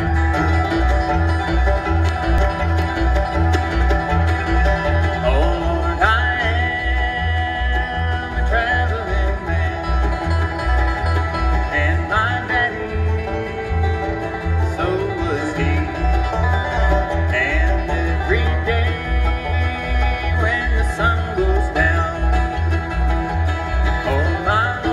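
Bluegrass band playing an instrumental intro on banjo, fiddle, mandolin, acoustic guitar and upright bass. The upright bass keeps a steady, even beat under sliding fiddle lines.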